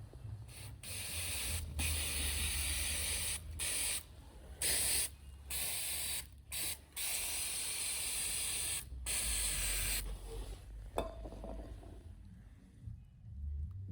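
An aerosol can spraying in a run of about eight hissing bursts, some brief and some up to two seconds long, stopping about ten seconds in. A sharp click follows about a second later.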